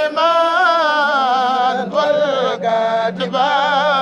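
Male voice chanting a Mouride xassida (Arabic devotional poem) without instruments, in long melodic phrases of wavering pitch with a few short breaks. A steady low drone is held underneath.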